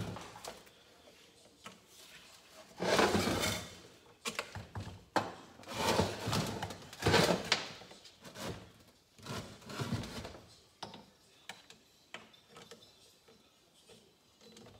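Hands working a carburetor and its cables loose from a small two-stroke motorcycle engine on a workbench: irregular rubbing, scraping and knocking of parts against the bench and a wooden block, in bursts through the middle, then a few light clicks.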